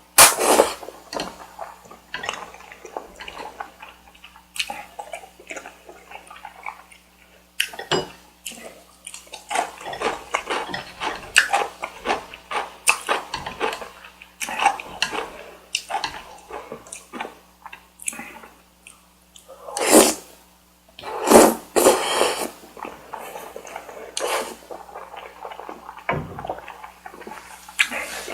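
Close-miked eating sounds: wet chewing and mouth smacks in many short clicks, with a few louder, longer bursts about two-thirds of the way in.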